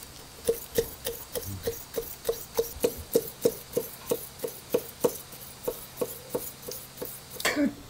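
Chef's knife rapidly slicing a raw fish fillet into thin sashimi strips on a wooden cutting board: quick, even knocks of the blade striking the board, about three a second.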